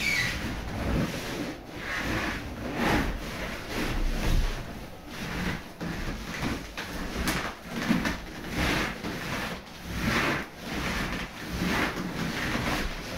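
Inflated latex balloons rubbing against each other and against a fursuit under a person's shifting weight, in irregular swells about once a second.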